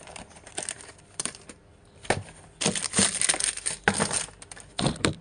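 Plastic packaging of a building-block minifigure set crinkling and rustling, with a denser stretch of rustling about halfway through. Small hard plastic pieces clatter out onto a table in several sharp clicks.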